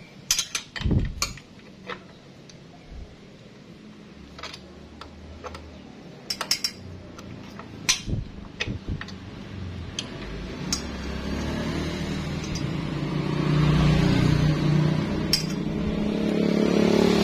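Light metal clinks and taps of a wrench and brake pedal linkage parts being handled and fitted. From about ten seconds in, a motor vehicle engine running steadily grows louder and becomes the loudest sound.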